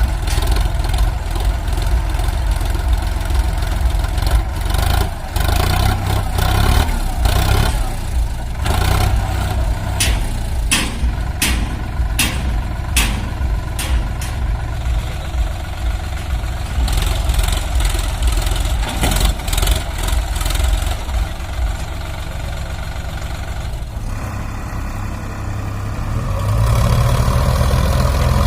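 Heavy diesel engines of a tractor and a JCB backhoe loader running under load while straining to pull a stuck, loaded trolley. Around the middle there is a run of sharp knocks, and near the end the engine revs up louder.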